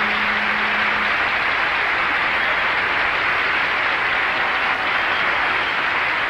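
Audience applauding steadily at the end of an unaccompanied gospel song, with the last held sung note fading out about a second in.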